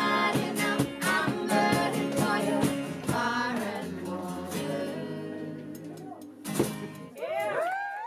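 Background music: a song with singing, fading down over the second half, with a sharp hit and a short wavering tone near the end before it cuts off.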